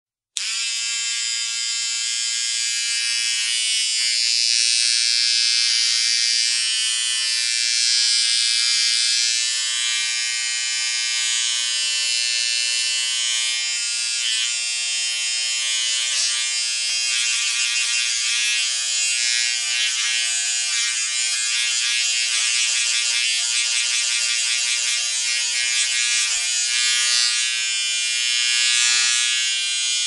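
Portable electric shaver running: a steady, high-pitched buzz that switches on suddenly just after the start and keeps going without a break.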